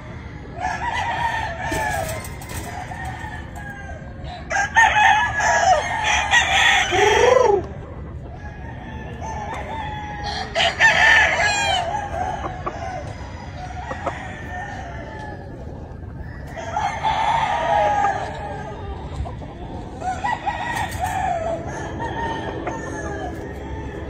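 Gamefowl roosters crowing, about five crows a few seconds apart across the pens.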